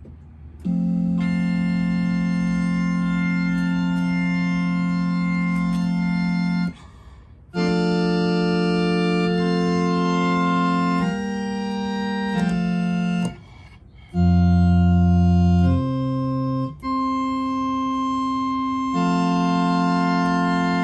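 Allen electronic organ playing sustained chords, each held for a few seconds, with two short breaks between phrases. Deep bass notes come in about two thirds of the way through, the loudest part.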